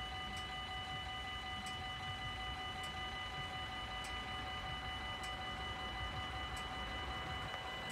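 Dutch level-crossing warning bell ringing steadily as a held chord of electronic tones, with faint ticks about once a second. Right at the end the noise of an approaching train begins to rise.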